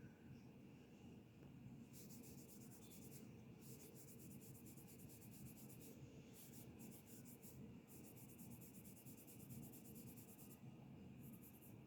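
Faint, crisp crunching of cornstarch, in several bursts of rapid fine clicks.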